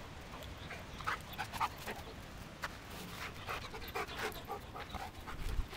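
Golden retriever panting in quick, irregular breaths, with a brief low rumble near the end.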